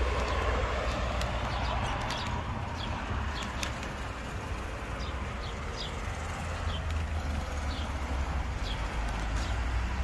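Short, high bird chirps, each falling in pitch, come every second or so over a steady low rumble and hiss, with a few sharp clicks in the first few seconds.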